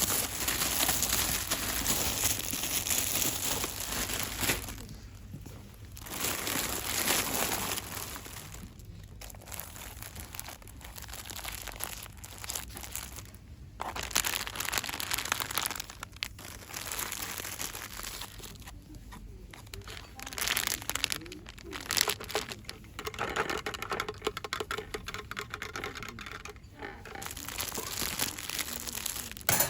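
Close-up crinkling and rustling of packaging being handled for ASMR, going in spells with several short pauses.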